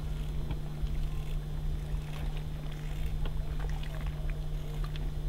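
Scissors snipping through a canoe patch cloth: scattered faint clicks over a steady low hum and rumble.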